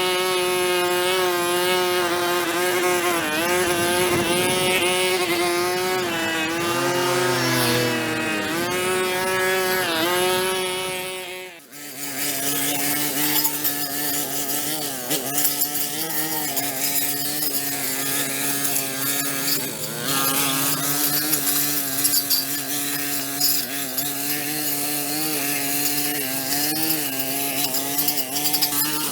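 Small two-stroke engine running, its pitch wavering up and down as it takes load. The sound drops out briefly a little over a third of the way in, then carries on at a slightly lower pitch.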